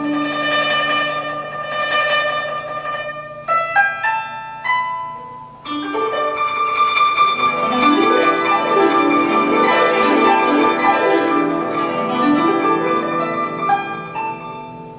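Background music played on plucked strings: held notes at first, then quick runs of notes from about seven seconds in.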